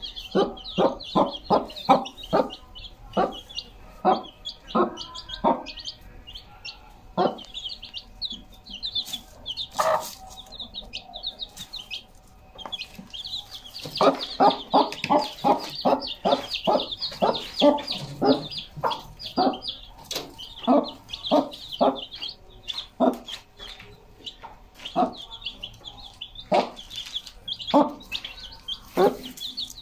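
A brown mother hen clucking over and over to her chicks, in quick runs of short clucks, while the chicks keep up a high, continuous peeping.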